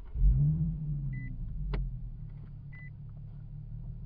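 Nissan 370Z's 3.7-litre V6 starting: it fires, flares up in revs and settles to a steady idle, heard from inside the cabin. A short electronic warning chime repeats about every second and a half, and there is a sharp click near the middle.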